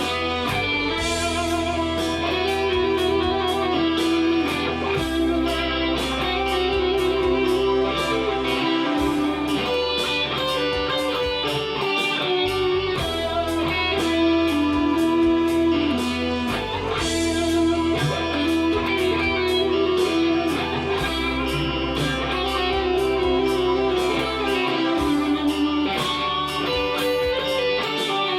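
Electric guitar playing improvised lead lines over a backing track with bass and a steady drum beat.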